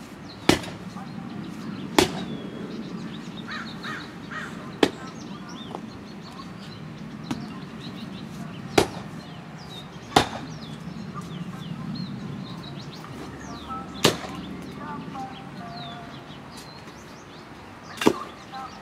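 Long-handled digging tool chopping into hard soil: about seven sharp strikes at irregular intervals, several seconds apart. Birds chirp faintly between the strikes.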